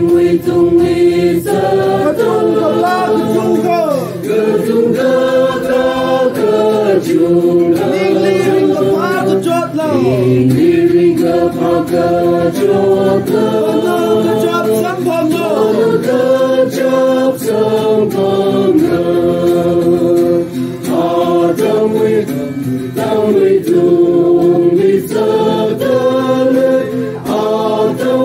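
A group of voices singing a hymn together, with long held notes.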